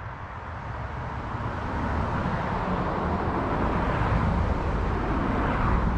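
A road vehicle driving past, its tyre and road noise building over about four seconds and starting to ease off near the end.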